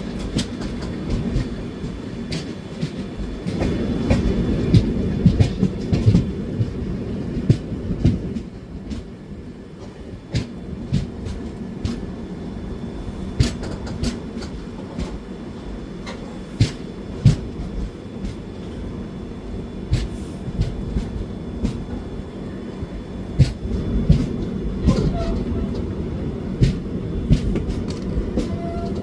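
Indian Railways train running on the track: a steady low rumble with irregular clicks and knocks of the wheels passing over rail joints. It grows louder about four seconds in and again near the end.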